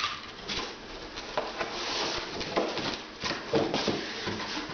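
Cardboard box being folded into shape by hand: irregular rustling and scraping of the cardboard, with short knocks as the flaps are bent and pressed.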